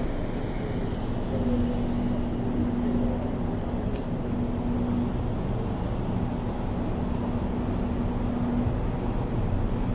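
Steady low rumble inside a metro train car, with a low hum that fades in and out and a single faint click about four seconds in.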